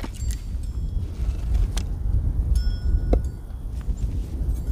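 Hatchet striking and splitting wood on a chopping block: a few sharp knocks, the loudest at the very end. Under them runs a low steady rumble of wind on the microphone.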